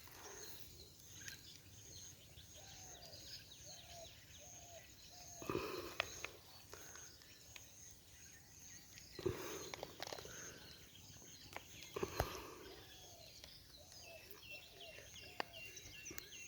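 Quiet outdoor ambience with a bird calling a run of four or five repeated low, arched notes, twice, and faint higher chirps near the end. A few soft knocks and rustles of handling break in about a third of the way in, at the middle, and near three-quarters.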